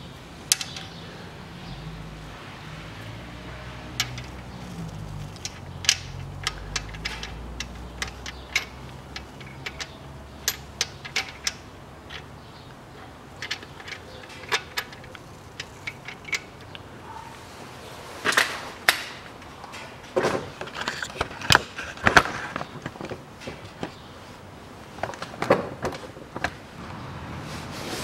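Scattered metallic clicks and knocks of hand tools and valvetrain parts as a new rocker arm is fitted into an open cylinder head under the camshaft. The knocks come thicker in the second half.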